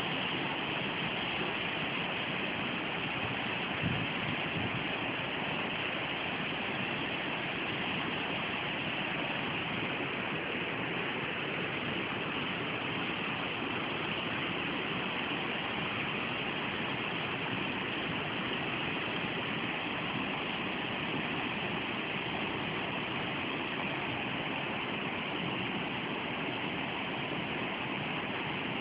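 Steady rush of a fast white-water mountain river, with a brief thump about four seconds in.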